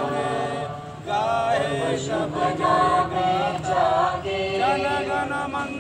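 A group of voices singing a slow song together in unison, with long held notes and a brief pause for breath about a second in.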